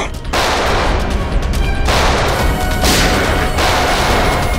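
Several volleys of rapid pistol gunfire, as a television shootout sound effect, over a dramatic background score.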